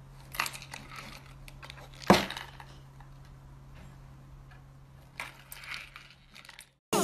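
Cat pawing at a small cardboard box: paper-and-card rustling and scraping, with one sharp knock about two seconds in, over a low steady hum.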